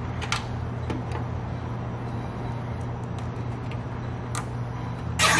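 A few light plastic clicks, then near the end a nylon cable tie pulled tight in one quick ratcheting zip, over a steady low hum.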